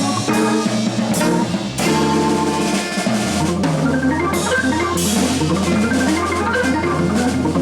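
Live jazz from an organ trio with tenor saxophone and drum kit: the organ holds a steady low bass note under running melodic lines while the drums keep time with frequent hits.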